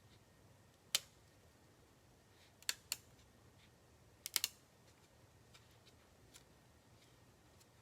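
A handful of sharp, isolated clicks, single ones and a quick cluster of three, over faint room hiss, like keys or buttons being pressed.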